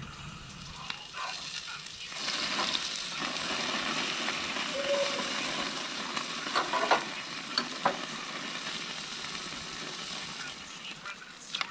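Hamburger patty frying on a camp stove: a steady sizzle that swells about two seconds in. A few sharp clicks come midway.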